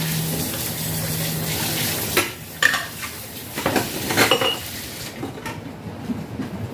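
Hand-washing dishes at a stainless steel sink: tap water running, then several clinks and knocks of glass and metal dishware as pieces are rinsed and moved about two to four seconds in. The running water falls away about five seconds in.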